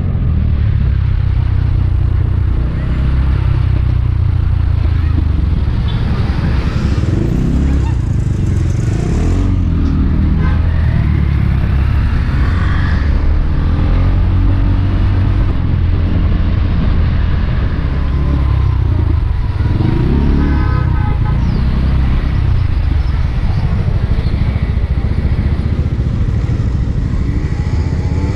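Motorbike engine running steadily while riding, under a continuous low rumble.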